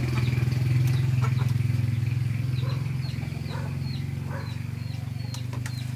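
A motor running steadily with a low, fast-pulsing hum, with birds chirping over it in short, high, repeated calls.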